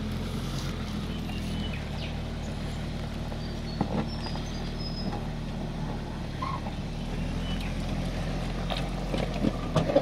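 Jeep Grand Cherokee ZJ's engine running steadily at low revs as it crawls over rocks in low range, with a single sharp knock about four seconds in.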